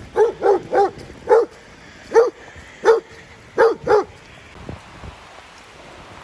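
A dog barking: about eight short barks over the first four seconds, then stopping.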